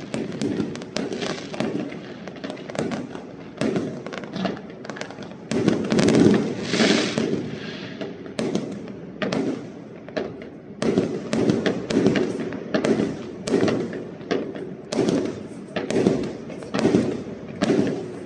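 Fireworks fired at close range: a long string of bangs and crackles, with shells launching and bursting. In the second half the shots come evenly, about two a second.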